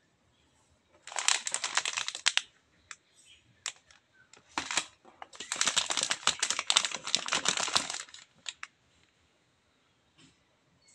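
Plastic pastry wrappers crinkling as they are handled, in two bursts of dense crackling: one from about one to two and a half seconds in, and a longer one from about five to eight seconds in.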